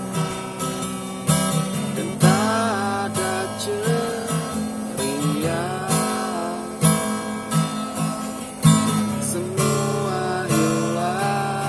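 Music: an acoustic guitar strumming chords in a steady rhythm, with a gliding melody line over it at times.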